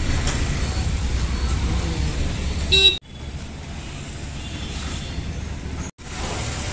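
Low rumble of vehicle engines on a busy fuel-station forecourt, with a short horn toot a little under three seconds in, the loudest sound here. After that the sound drops to quieter, steady traffic noise.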